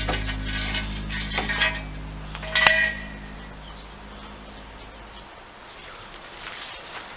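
A few metallic clinks and knocks, the loudest a ringing clink about two and a half seconds in, over background music that stops about five seconds in.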